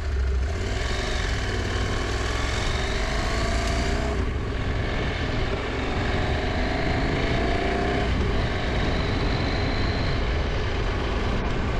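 Husqvarna Norden 901 parallel-twin motorcycle engine accelerating away from the rider's seat. The engine note climbs and drops back twice, about four and eight seconds in, as it shifts up through the gears.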